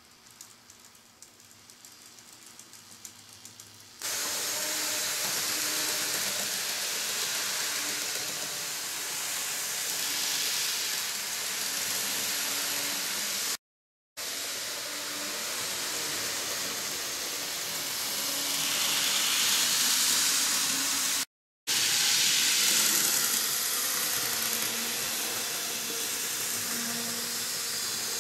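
N-gauge model train running on sectional track: a steady mechanical hiss of the small motor and wheels on the rails, with a faint wavering whine, starting abruptly about four seconds in after a few faint ticks. Twice it cuts to brief silence.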